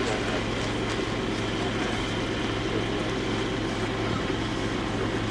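A steady low mechanical hum, like a motor running, with even background noise and no distinct events.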